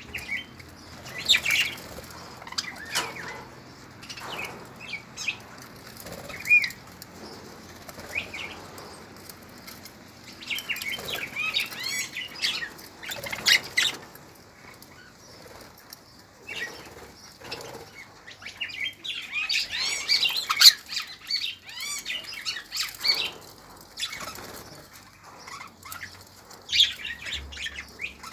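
A flock of budgerigars chirping and chattering, with wings flapping as birds flutter in and out. The chatter comes in several busy stretches between quieter moments.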